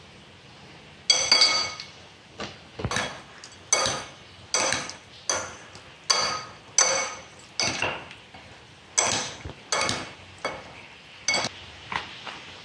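Metal spoon clinking against a ceramic bowl while stirring and tossing seasoned pork pieces. It makes a series of short, ringing clinks at an uneven pace, about one or two a second, starting about a second in.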